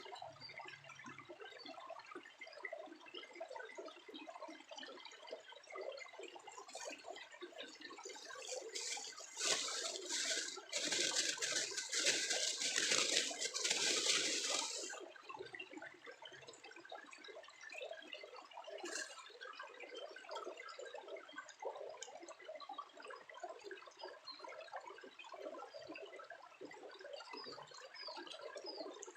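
Water splashing and sloshing, loudest and fullest for about five seconds in the middle, over a steady faint crackle.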